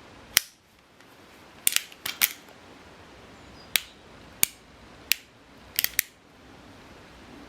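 CO2 airsoft Peacemaker (Colt Single Action Army replica) revolver: about ten sharp metallic clicks and snaps from its action, irregularly spaced, some in quick pairs.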